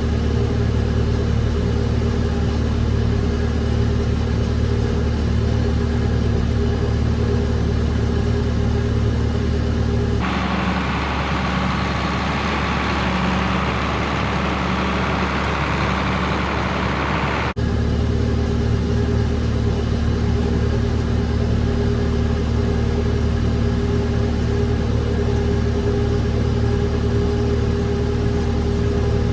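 Farm tractor engine running steadily under load, a low even drone. For several seconds in the middle it gives way to a noisier, hissier stretch that starts and cuts off abruptly, as from a different recording.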